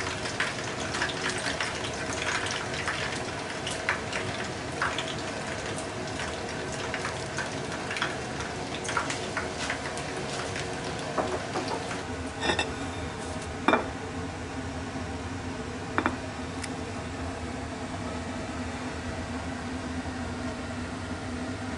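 Hot frying oil in a frying pan sizzling and crackling around leftover tempura batter bits, with three sharp knocks in the middle, then a steadier low hum.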